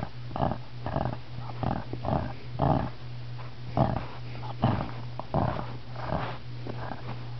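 Shih tzu growling in a run of about a dozen short, uneven bursts, the irritated growl of a small dog touched while it naps.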